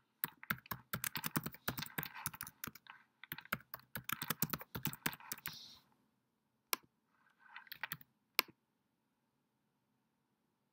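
Typing on a computer keyboard: quick runs of keystrokes for about six seconds, then a few scattered clicks and keystrokes, the last about eight and a half seconds in.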